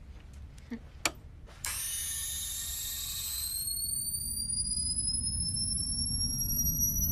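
Polaroid instant camera firing: a sharp shutter click about a second in, then the motor whirring the print out for about two seconds. A high whine follows, slowly rising in pitch over a low rumble that grows louder.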